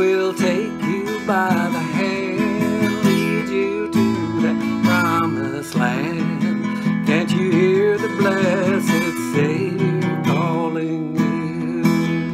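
Acoustic guitar strummed steadily in a country-gospel rhythm, playing the song's chords in the key of E.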